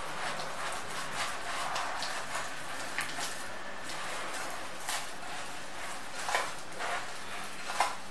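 Hands mixing and kneading wet naan dough in a glass bowl: a steady rustle of the dough with a few light knocks against the bowl.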